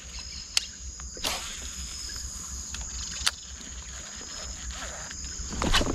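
Insects chirring in a steady, thin high-pitched tone from the riverside vegetation, over a low wind rumble, broken by a few sharp clicks and knocks; near the end louder knocking and water noise pick up.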